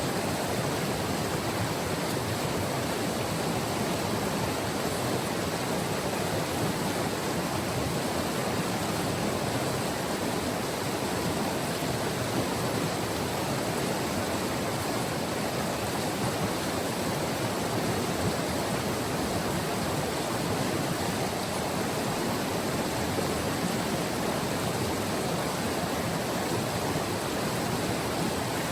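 White River rushing and churning over its bed: a steady, even flow of water with no breaks.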